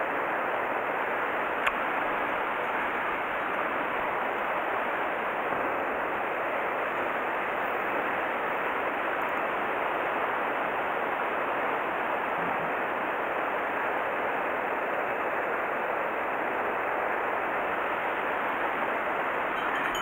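Mountain stream water rushing steadily, with one faint click about two seconds in.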